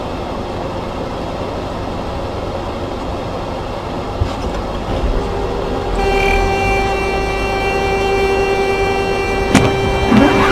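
Steady vehicle rumble, then about halfway through a loud horn starts and holds one unbroken tone to the end, with a sharp knock shortly before the end.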